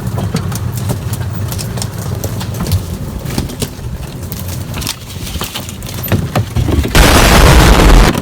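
Off-road vehicle's engine running at a low rumble as it drives over a rough trail, with many short knocks and clatters. About seven seconds in comes a loud burst of noise lasting just over a second.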